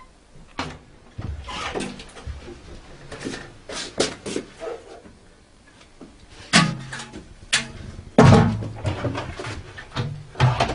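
Irregular knocks and clatters of plastic water jugs and a bucket being handled and set down, with a heavy thump about eight seconds in.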